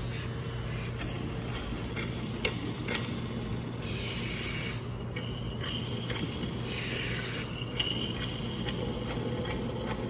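Short bursts of spray hissing onto engine parts being cleaned, three in all, each under a second, the first already under way at the start. Between the bursts come a few small clicks of parts being handled.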